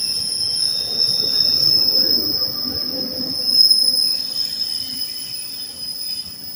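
NJ Transit commuter train of bilevel coaches with an ALP-46A electric locomotive at the rear rolling past at the platform, its wheels giving a steady high-pitched squeal over the rumble of the cars. The sound is loudest about three and a half seconds in, as the locomotive goes by.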